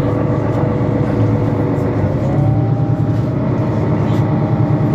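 Mercedes-Benz Citaro C2 city bus with a Euro 5 diesel engine running under way: a steady engine drone with a whine that rises in pitch a little over two seconds in and then holds.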